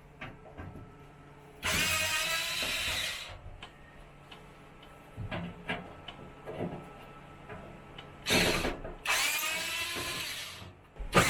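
Power drill running in three short bursts, each spinning up at the start, with small clicks and knocks between them.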